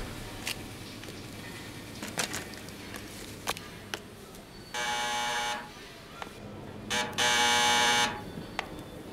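Electric doorbell buzzing twice, each buzz about a second long, the second one louder. A few light clicks come before.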